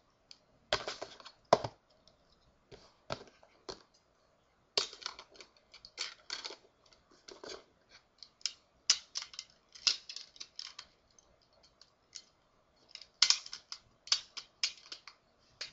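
Irregular clicks, taps and scrapes of hard plastic against plastic as a snap-on case is fitted onto an iPod Touch, with thicker runs of clicks around the middle and near the end.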